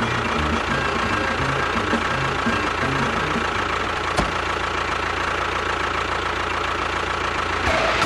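A motor running steadily, with a constant high whine over an uneven low chugging.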